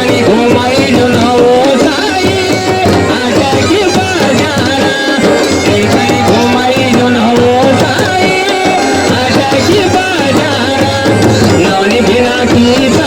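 Instrumental passage of a Kumaoni folk song: a wavering melody over a steady drum rhythm, with no singing.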